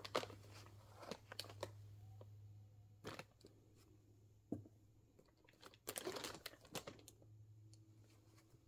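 Blind-box packaging being handled: scattered crinkles and taps of plastic wrap and cardboard, with a busier burst of crinkling about six seconds in, over a faint steady low hum.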